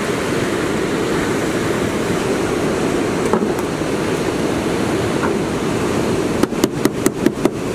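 A steady rush of surf, then about six and a half seconds in a quick run of sharp knocks, about six a second: a meat-tenderiser mallet pounding a squid (chokka) wing on a plastic cutting board to soften it for a wraparound bait.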